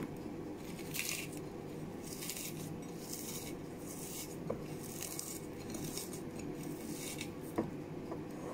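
Fingers crushing and rubbing fried dried red chillies with salt against a glass bowl: soft rustling strokes about once a second, with a couple of light clicks on the glass.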